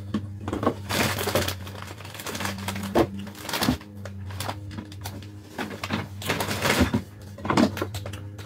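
Rummaging while searching for ketchup: irregular rustling and clicking of things being handled and moved, in bursts, over a steady low hum.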